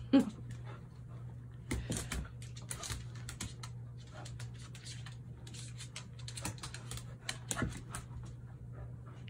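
A dog and a kitten play-wrestling: claws clicking and scuffling on a hardwood floor in quick irregular runs, with the dog panting. A brief loud cry falling in pitch sounds right at the start, and a loud knock comes near the end.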